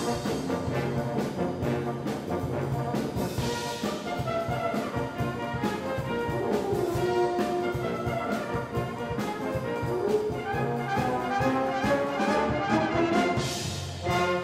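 Full brass band playing a lively tune in parts, with drums keeping a steady beat under the brass. A cymbal crash comes about three and a half seconds in and again near the end.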